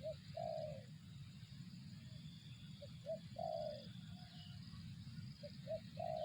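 Spotted dove (tekukur) cooing: three repeated phrases, each a couple of short coos followed by a longer falling coo, about every three seconds, over a steady low hum.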